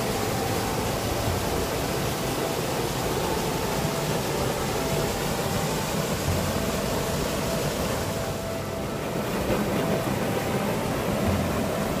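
Small waterfall of a mountain stream pouring over granite into a rock pool: a steady rush of falling water.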